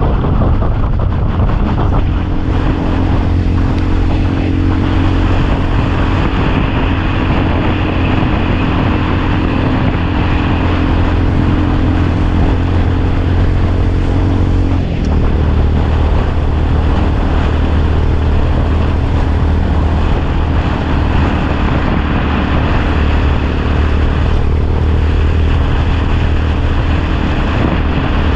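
Motorcycle engine running steadily under way, with road and wind noise; the engine note changes about halfway through.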